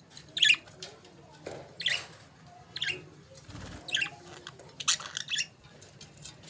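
Budgerigars chirping: about six short, high chirps, spaced roughly a second apart.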